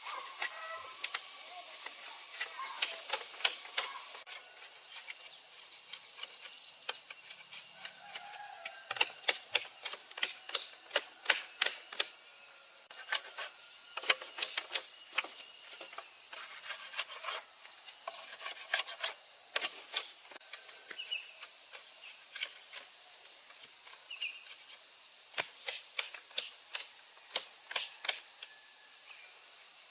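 Irregular sharp light taps and knocks, some in quick runs, over a steady high-pitched hiss.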